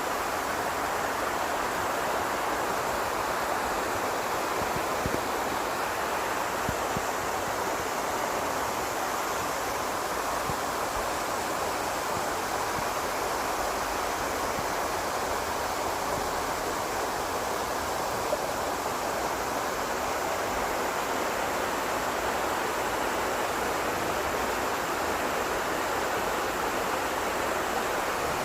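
Waterfall in a valley stream, water pouring and splashing in a steady, unbroken rush.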